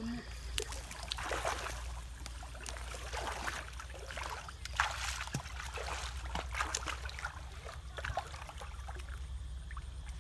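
Shallow muddy water sloshing and splashing irregularly as several people wade through it and grope along the bottom with their hands for fish, over a steady low hum.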